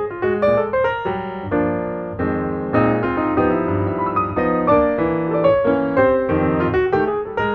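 Background instrumental music: a quick, even run of short notes that carries on without a break.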